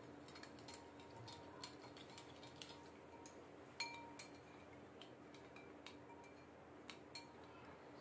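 Metal spoon clinking and scraping against a glass bowl while stirring yeast: faint, irregular clinks over a steady low hum, with one louder ringing clink about four seconds in.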